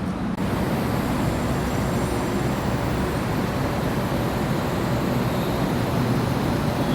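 A train running, a steady rumbling noise that comes in suddenly about half a second in and holds steady.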